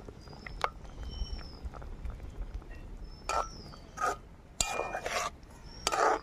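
Spatula scraping and knocking against an aluminium kadai while stirring thick egg and brinjal curry, with several scrapes in the second half. A few short, high chirps of a bird are heard faintly.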